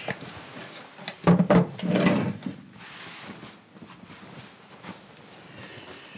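Two or three quick soft thumps followed by a brief rustle of bedding, as a person drops into bed and pulls the covers over.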